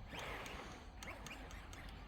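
Faint whine of an electric RC truck's motor, briefly rising and falling near the start, with a few light clicks.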